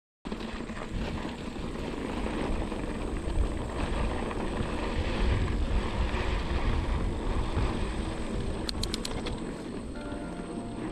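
Wind rumbling across a handlebar-mounted action camera's microphone as a mountain bike rolls along a dirt singletrack, mixed with tyre and trail noise. A brief run of clicks comes about nine seconds in.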